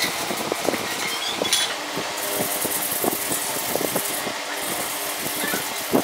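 Hand sanding of a Royal Enfield Bullet's rusty steel exhaust silencer with sandpaper: a run of short scraping strokes over a steady hiss.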